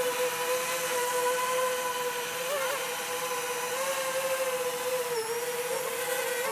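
JME quadcopter drone's motors and propellers in flight just after takeoff: a steady buzzing whine, its pitch dipping and rising slightly a few times as the motors adjust.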